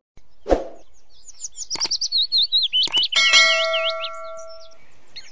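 Subscribe-button sound effect: a few sharp clicks and a ringing notification-bell chime about three seconds in, over birds chirping.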